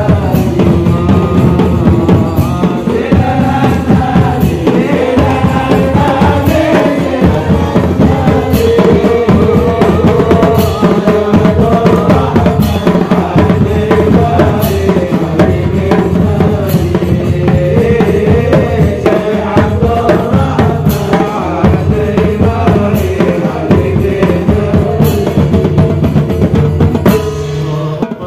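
Marching drum band playing a steady, driving beat on snare drums and bass drums, with sharp cymbal-like accents about once a second. Voices sing a sholawat over the drumming. The drums stop at the very end.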